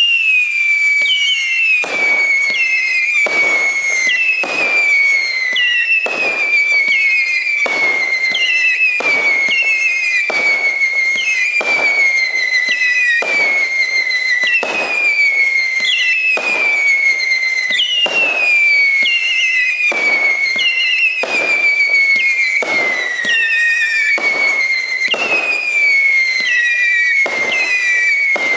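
A 500-gram, 36-shot fireworks repeater cake firing shot after shot. Each shot is a loud howling whistle tail that falls in pitch and overlaps the next, and a bang comes about once a second as the shots fire and break.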